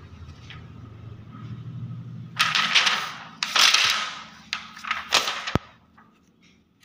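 Sheet of 75-micron clear polyester film crackling as it is flexed by hand, in three loud bursts in the second half, with a sharp click after the last.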